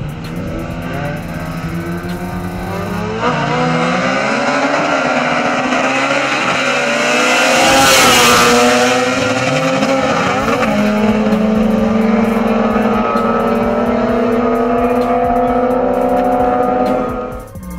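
Two naturally aspirated four-cylinder Honda Civics launching from a standstill about three seconds in and accelerating hard. Their engine pitch climbs and drops back at each gear change. The cars pass close by about eight seconds in with a loud rush of noise, then a steadier engine drone carries on.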